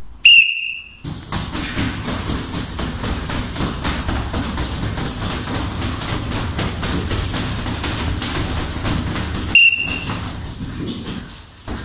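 Gloved punches on heavy bags, a dense, irregular run of blows with shuffling feet, after a high signal tone of under a second that starts the round. A second short high tone sounds near the end while the punching goes on.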